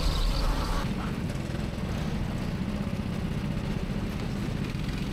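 Go-kart driving on the track: a steady engine rumble with road noise, dropping a little in level about a second in.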